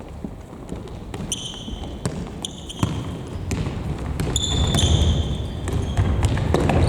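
Indoor futsal play on a sports-hall floor: court shoes squeak several times, in short high chirps, mixed with a few sharp knocks of the ball being kicked or bounced. The low rumble of running feet grows louder from about four seconds in.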